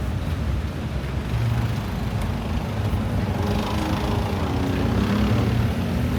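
Street traffic rumbling, with a vehicle engine growing louder as it passes in the second half.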